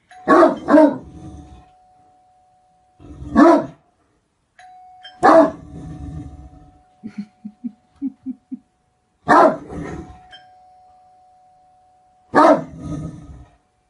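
Great Dane barking: six deep, loud single barks, two in quick succession at the start and then one every few seconds, with a few small short sounds between them. A faint steady tone runs underneath.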